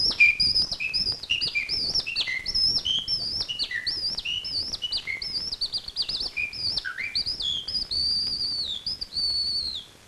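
A man whistling an imitation of a skylark's song as it rises from the ground: a rapid, unbroken run of high warbling notes that jump between a higher and a lower pitch, ending in two longer held notes.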